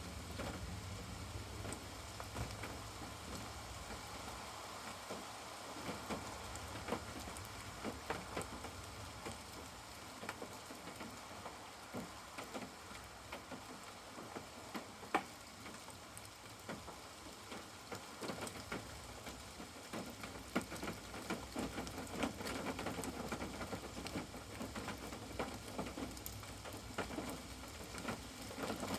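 Steady rain falling, with many individual drops ticking and pattering.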